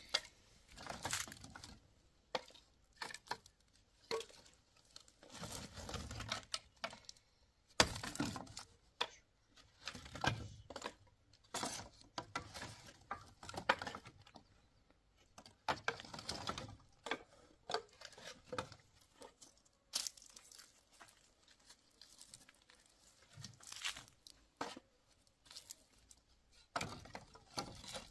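Irregular handling noises: scattered knocks and clicks mixed with rustling and crinkling, as of things being moved and wrappings handled in a small room.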